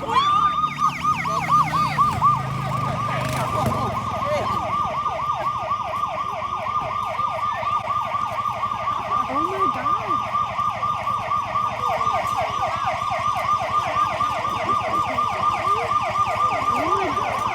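Loud emergency vehicle siren in a fast yelp, sweeping up and down about five times a second after quickening over the first couple of seconds.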